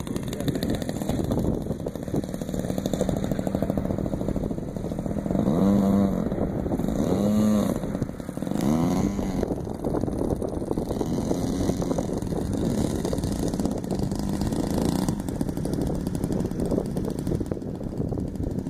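Small engine of a radio-controlled model airplane idling on the ground, with three quick throttle blips that rise and fall in pitch in the middle.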